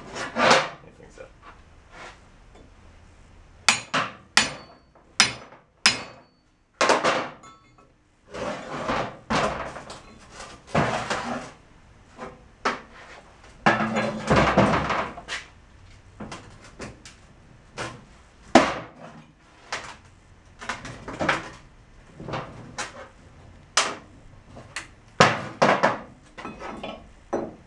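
Hammer blows on metal at an irregular pace, struck against a stubborn truck rear-differential carrier on a steel workbench. Between the strikes the heavy cast differential housing is shifted and turned over on the bench, clanking and scraping.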